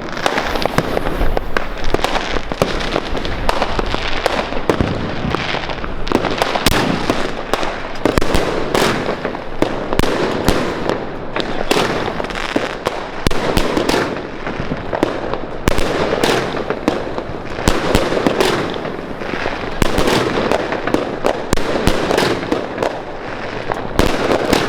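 Funke 'Doppelschlag' 30 mm firework cake firing its 20 shots: a long run of sharp bangs in quick succession, over a steady noisy background between them.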